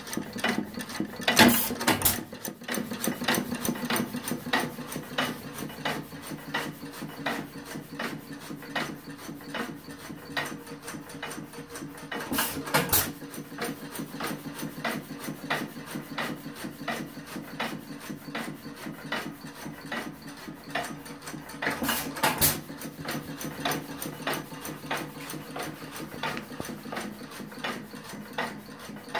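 1½ hp New Holland hit-and-miss farm engine running unloaded: a rapid, even clicking of its mechanism as the flywheels coast. Three times, about ten seconds apart, comes a short burst of louder firing strokes as the governor lets it fire to hold speed.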